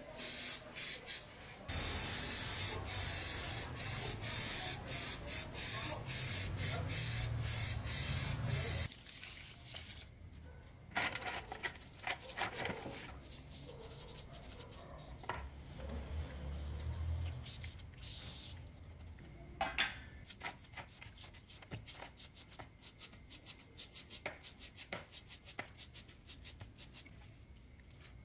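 Aerosol spray paint hissing in a few short bursts, then in one long spray of about seven seconds, onto a small chainsaw part hung on a wire. After that, a brush scrubbing gears and small metal parts in a plastic basin of cleaning liquid, with rubbing, swishing and light clinks of metal.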